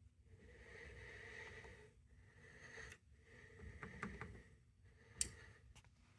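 Near silence in a small room: faint rustling handling noise and a few small clicks, with one sharper click just after five seconds in.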